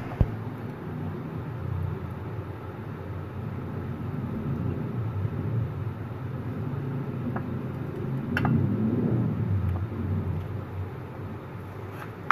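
A steady low rumble that swells for a couple of seconds about two-thirds of the way through and then fades, with a sharp click just after the start.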